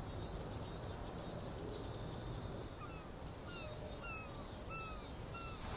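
Outdoor ambience: a steady low background rumble with birds calling over it. There are quick high chirps in the first couple of seconds, then a run of short, downward-slurred whistled calls from about three seconds in.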